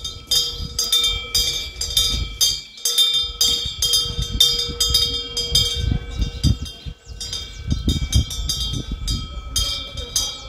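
Bronze temple wind bell (pungyeong) with a fish-shaped wind vane, its clapper striking over and over as the wind swings it, several strikes a second, with steady ringing tones held between them. Wind rumbles on the microphone underneath.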